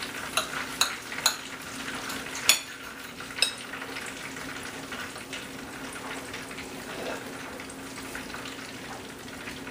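Knife cutting through a fried chicken cordon bleu with a crunchy ground-pork-rind breading: a crackling, crunching crust with several sharp clicks of the knife on the plate in the first few seconds, over a steady low hum.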